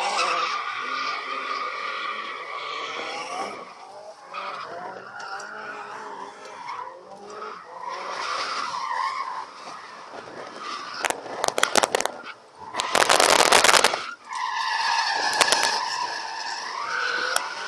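Ford AU Falcon drifting, heard from inside the cabin: the engine revs up and down while the tyres squeal in long slides. About eleven seconds in come a few sharp crackles, then a loud rushing blast lasting over a second.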